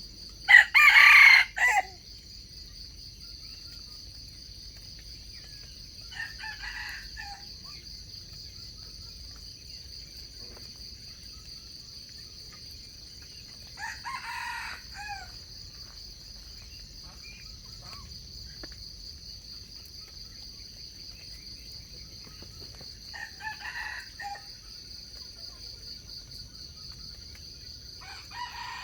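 Wild junglefowl roosters crowing: one loud, close crow near the start, then fainter crows about every eight seconds. A steady high insect drone runs underneath.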